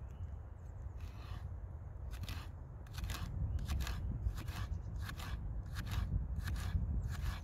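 Food being cut with a knife: a steady run of short, crisp cutting strokes, about two to three a second, starting about two seconds in.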